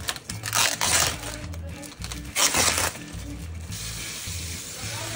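Background music with a steady repeating bass line, over two short bursts of noise about half a second and two and a half seconds in, then a steady hiss for the last second and a half.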